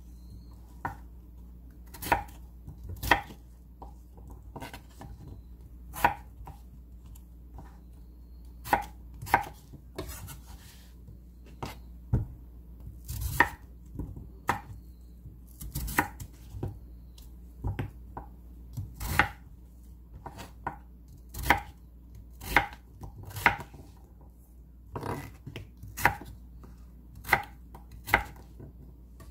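Kitchen knife cutting peeled raw potatoes into cubes on a thick wooden cutting board: irregular sharp knocks of the blade meeting the board, about one a second, some in quick pairs.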